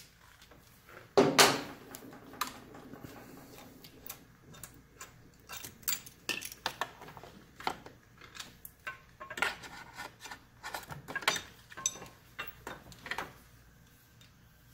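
Irregular clicks and clinks of a small hand ratchet and Torx bits on metal, with a sharper clink about a second in, as the bolts of a motorcycle's factory auxiliary-light mounting bracket are undone.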